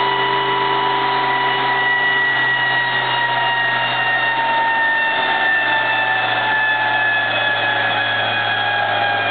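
Volvo turbo station wagon on a chassis dynamometer, drivetrain and dyno rollers spinning: a steady loud rush with a whine that falls slowly and evenly in pitch as they wind down.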